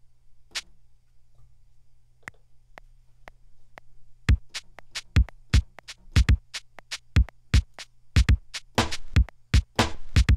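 Drum-machine beat from a Native Instruments Battery sampled drum kit, played back through Maschine: kick and snare hits start about four seconds in, after a few faint, evenly spaced clicks.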